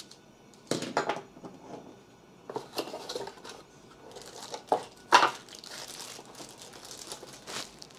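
A small clear plastic bag of mounting parts crinkling as it is lifted out of a cardboard box and handled, in irregular bursts of rustling, the loudest about five seconds in.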